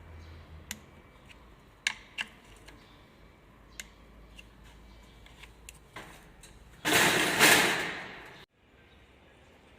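Scattered metal clicks and clinks of a torque wrench and bolts as an automatic transmission oil pan is bolted up at 8 N·m. About seven seconds in, a loud rushing hiss lasts about a second and a half, then cuts off suddenly.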